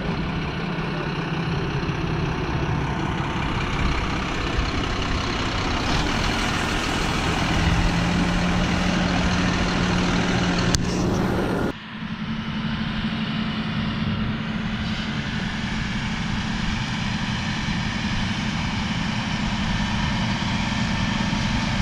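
Claas Arion 650 tractor's diesel engine running steadily at working revs. About twelve seconds in the sound breaks off abruptly and resumes with a slightly higher, steady engine note.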